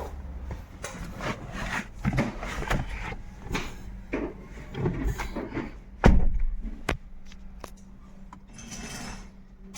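Scattered knocks and clatter of handling in a workshop, with one sharp loud thump about six seconds in, over a steady low hum.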